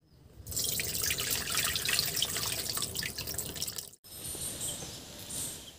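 Water poured from a bowl splashing and trickling onto a banana flower in a wide metal pot. It stops abruptly about four seconds in and gives way to a fainter steady hiss.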